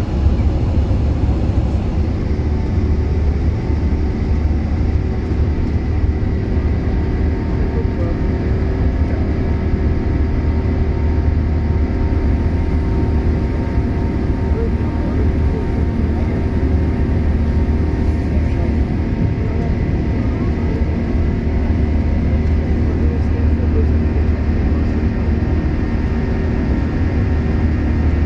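Steady low rumble of an Airbus A380's jet engines and airflow heard inside the cabin during the climb after takeoff, with a few faint steady whining tones above it.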